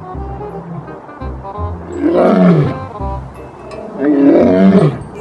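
Male lion roaring twice, about two seconds apart, each roar falling in pitch, over background music.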